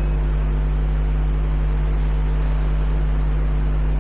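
Steady low electrical hum with a buzzing edge and a faint hiss over it, about as loud as the speech around it.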